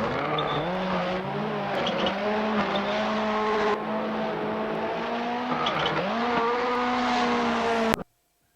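Race car engine running hard at high revs, its pitch held fairly steady but dipping briefly and climbing back several times, as with lifts and gear changes. The sound cuts off abruptly near the end.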